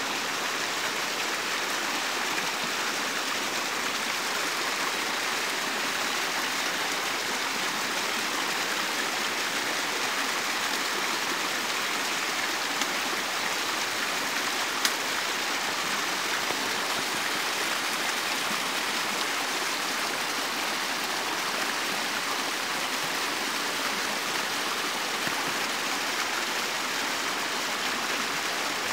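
Small shallow stream running over its bed with a steady, even rush of water. There is a single sharp click about halfway through.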